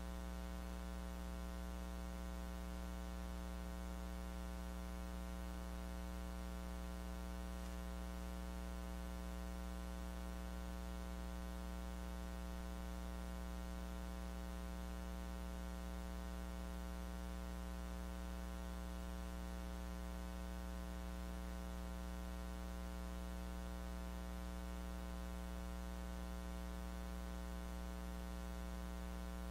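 Steady electrical mains hum with a stack of overtones and a light hiss, unchanging throughout. It is interference in the recording chain, with no lecture sound captured.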